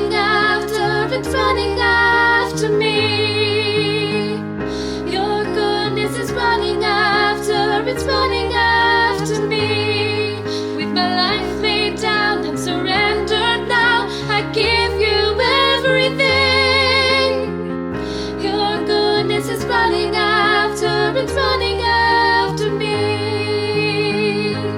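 Slow music: a melody with vibrato over piano or keyboard accompaniment and a bass line that steps from note to note.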